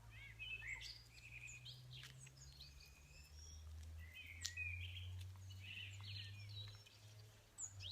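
Small songbirds chirping and singing, several short, quick calls and trills overlapping. A faint, steady low rumble runs underneath.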